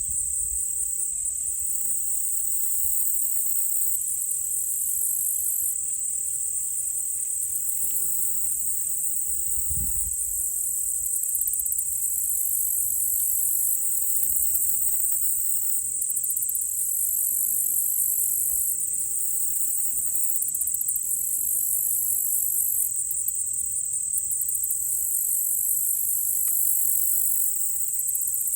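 Steady, high-pitched chorus of insects, an unbroken trill with a faster pulsing shimmer above it. A few faint low thuds, the plainest about ten seconds in, are distant gunshots from a shooting range.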